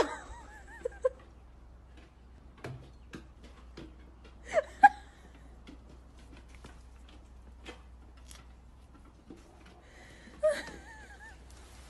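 Three short, high, wavering vocal sounds, one at the start, one about five seconds in and one near the end, with faint scattered ticks between them.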